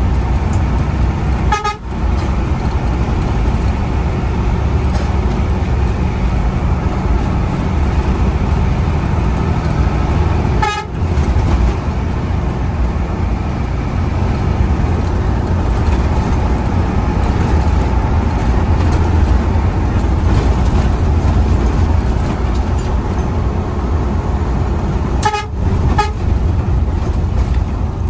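Intercity bus heard from inside the cab: a steady low engine and road rumble, with short horn toots about four times, once near the start, once in the middle and twice in quick succession near the end.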